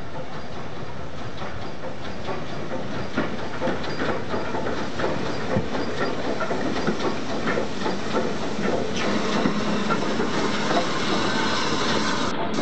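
BR Standard Class 9F steam locomotive approaching with its train, steam hissing, with irregular clanks and knocks from the wheels and motion, getting a little louder as it comes closer.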